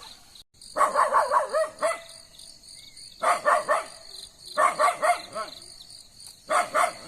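A dog barking in four quick bursts of short yaps, over steady chirring of insects.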